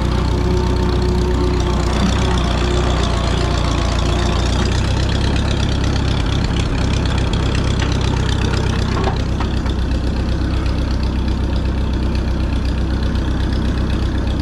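Tractor engine running at a steady speed, a low, even sound with no change in revs.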